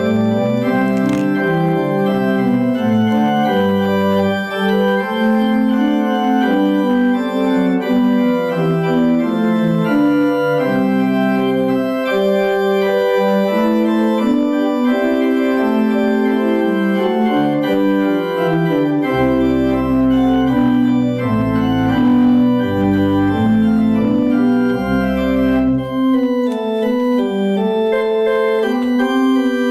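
Church organ playing a slow piece of sustained chords, with deep pedal bass notes coming in about twenty seconds in and dropping out a few seconds later.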